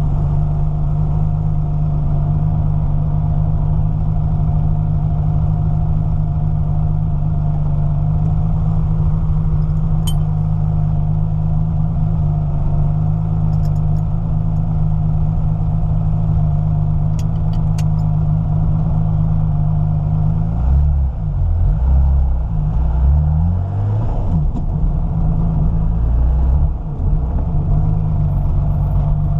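Porsche 993 RS Clubsport's rebuilt 3.8-litre air-cooled flat-six, running on a MoTeC ECU, idling steadily. About two-thirds of the way through, it is revved up and down a few times before settling back to idle.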